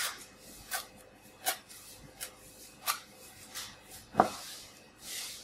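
Chef's knife chopping parsley on a plastic cutting board: five separate chops, roughly one every three quarters of a second, then a louder knock a little after four seconds in.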